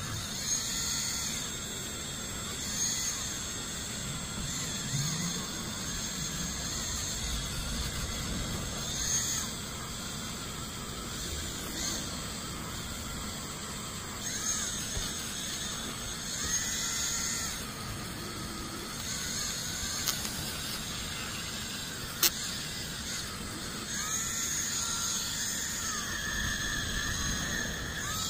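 Handheld rotary tool running at high speed with a small polishing wheel against a copper-plated pendant: a steady high whine whose pitch shifts several times as the wheel works the metal. One sharp click a little past two-thirds of the way through.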